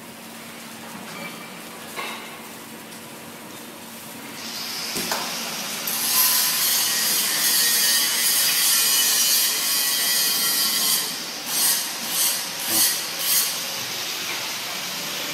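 Paint-bucket heat transfer printing machine working: a faint steady hum, then from about four seconds in a loud hissing, rubbing noise that ends in four short swells about half a second apart.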